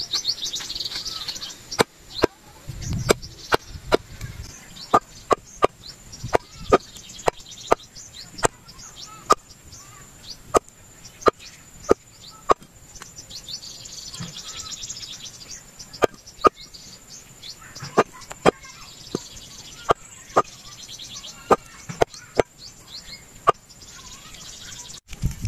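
A large knife chopping raw chicken on a wooden chopping block: a steady series of sharp chops, roughly two a second. Faint chirping in the background.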